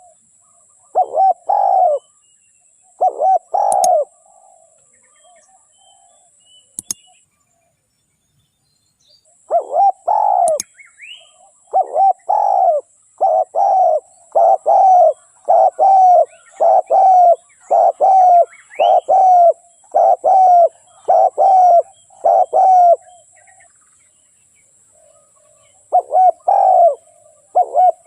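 Spotted dove (tekukur) cooing in short rolling phrases, each a quick note followed by a longer one. After a couple of early phrases and a pause, it calls over and over at a steady pace of a little more than one phrase a second, then pauses briefly and resumes near the end.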